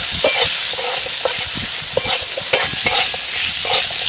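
Potato wedges sizzling in hot mustard oil in a metal kadai, with a metal spatula scraping and clinking against the pan several times a second as they are stirred.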